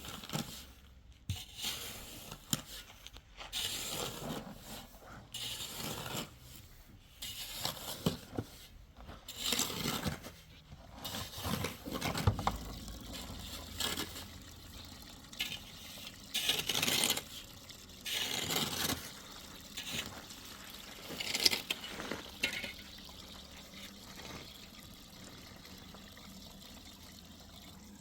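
Irregular bursts of clinking and scraping with splashing water.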